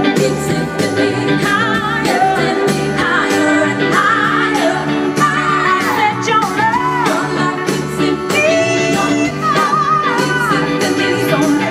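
Live soul band playing with a woman singing lead over electric guitar, bass and drums, the drums keeping a steady beat.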